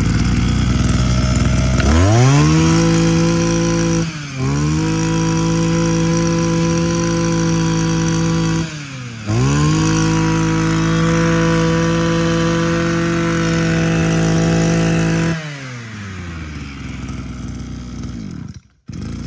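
Echo 23cc brush cutter's small two-stroke engine idling, then revved up to high speed three times. Each rev is held for several seconds with short dips between, and the engine drops back to idle near the end.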